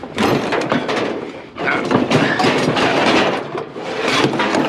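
Rustling and clattering of scrap being handled, with many small sharp clicks and knocks in two long stretches separated by a short pause about a second and a half in.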